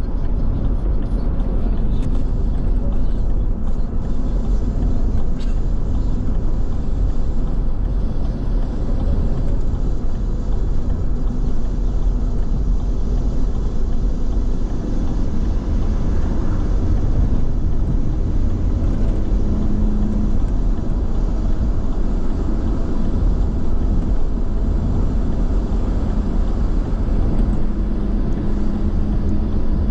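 Car driving at a steady speed on a paved road, heard from inside the cabin: a continuous low rumble of engine and tyre noise. A low steady hum joins in briefly about two-thirds of the way through and again near the end.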